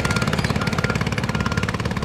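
Diesel engine of heavy construction machinery running steadily with a rapid, even pulse, with music mixed in.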